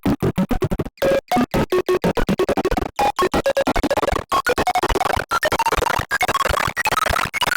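The 'lean' meme sound effect, heavily sped up, plays as a choppy, chaotic run of short pitched bursts, several a second, with brief gaps between them. The pitch climbs higher as it goes.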